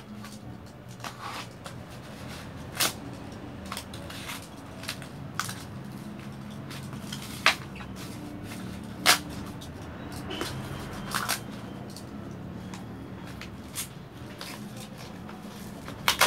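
A utility knife cutting through a cardboard box and its packing tape, with cardboard scraping and rustling as it is handled, and a few sharp clicks and snaps.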